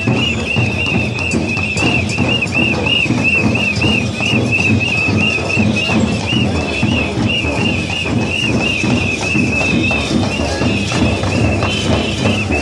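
Folk parade music: a shrill whistle repeats a quick rising-and-falling note about three times a second over drumming and stamping. Near the end, other high pipe notes join in.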